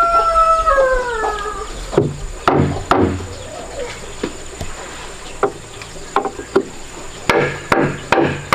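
Wooden mallet striking a wood chisel, chiseling a slot into a wooden door frame: runs of sharp knocks about half a second apart, a few lighter taps among them. For the first second and a half a rooster's crow trails off, falling in pitch.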